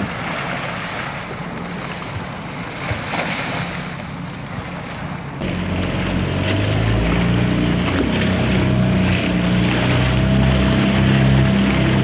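Wind and small waves lapping for the first five seconds, then a 5 hp outboard motor running steadily under way on choppy water, with wind on the microphone.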